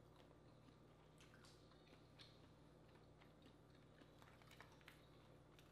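Near silence over a low steady hum, with a few faint, scattered clicks and crackles from handling and eating boiled crawfish, their shells tapping as they are picked from the pile.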